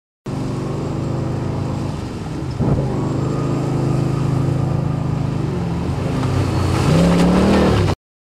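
Amphibious car engine running and revving, its pitch shifting a few times and climbing near the end; the sound starts and cuts off abruptly.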